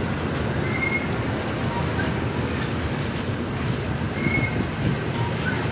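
Double-stack container train rolling past on well cars: a steady rumble of steel wheels on rail, with brief high wheel squeals about a second in and again past four seconds.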